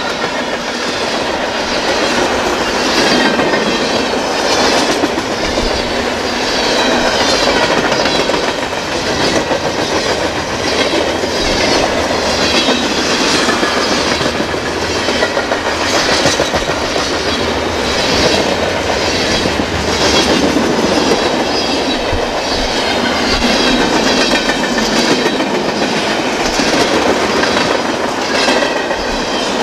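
Freight train of boxcars and tank cars rolling past, a steady noise of steel wheels on rail with a clicking that repeats about once a second as the wheel sets pass over rail joints.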